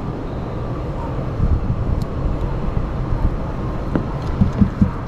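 Steady low outdoor rumble with a few low thumps near the end.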